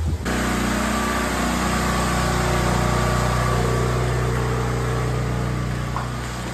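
A small engine or motor running steadily with an even hum, cutting in abruptly just after the start.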